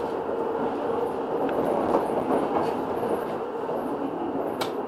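An R2.2 tram running along street track: a steady rumble of wheels on rail, with a few sharp clicks as the wheels pass over the crossings and switches of a junction. The loudest click comes near the end.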